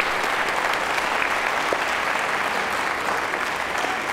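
Audience applauding steadily, tapering off slightly near the end.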